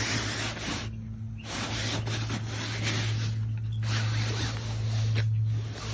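Mesh pool float's fabric and ring rustling and scraping on concrete as a puppy stuck underneath moves about, in three spells with brief pauses. A steady low hum runs underneath.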